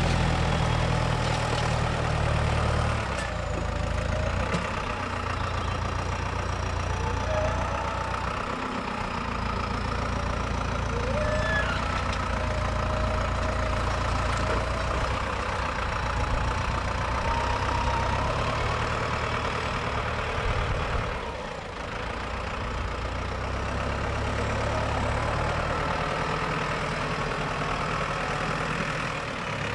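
Lamborghini R.4 110 tractor's diesel engine running steadily while pulling a plough, easing briefly about two-thirds of the way through.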